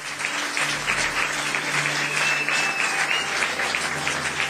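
Concert audience applauding steadily, a dense even clapping, with a brief high whistle about two and a half seconds in.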